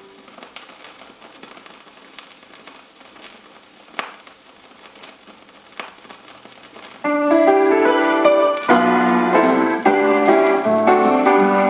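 A quiet gap with faint hiss and a couple of soft clicks, then about seven seconds in a piano starts the intro of a gospel song, playing chords and a melody.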